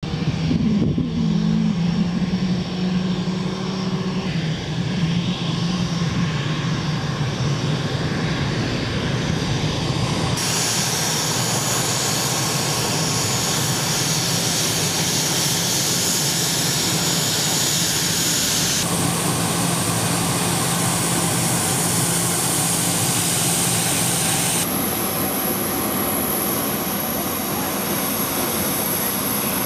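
Turbofan jet engines of an EC-37B Compass Call (a Gulfstream G550 airframe) running at taxi power: a steady rush of jet noise with a low hum at first and a high whistling whine later on. The sound changes suddenly several times, at about 4, 10, 19 and 25 seconds in.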